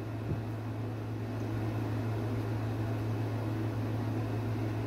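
Steady low hum with an even hiss under it, a constant room drone of the kind a running fan or air-conditioning unit makes.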